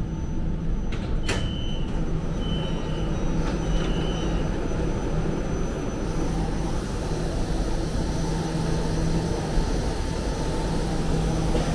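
Metro train standing at a station platform, with the low steady rumble of train and station. About a second in, a click and three short high beeps about a second apart sound as the doors open, then the shuffle and bustle of a crowd of passengers getting off.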